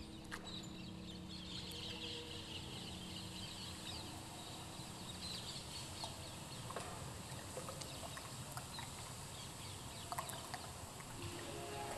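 Quiet passage of contemporary music for recorder orchestra and electronic tape: a soft held low tone that fades out about halfway through, scattered small clicks, and a flutter of high, twittering chirp-like sounds in the first half.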